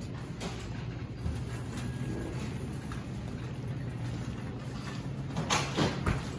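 Grocery store ambience: a steady low hum with faint scattered clicks and handling noises, then two short, louder noisy bursts near the end.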